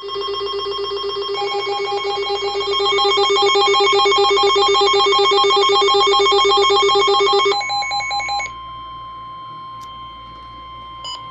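NOAA Weather Radio emergency alert signals: electronic tones warbling rapidly between several pitches for about seven and a half seconds. They then give way to a single steady alert tone, the weather radio's warning alarm tone that precedes the spoken warning.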